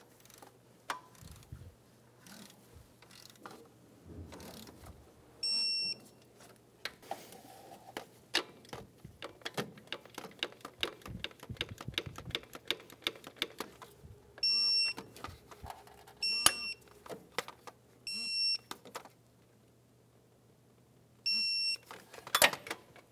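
Ratchet head clicking in quick runs as the alternator bolts are tightened, broken by five short electronic beeps from a digital torque wrench, the signal that the 33 foot-pound setting has been reached.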